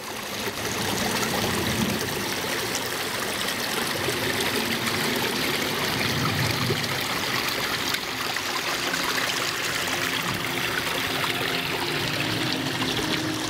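Water splashing and running steadily over rocks in a small garden waterfall and stream.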